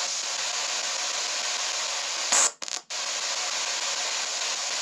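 S-Box spirit box sweeping through radio stations, giving a steady static hiss. About halfway through there is a brief louder crackle, then two short cut-outs.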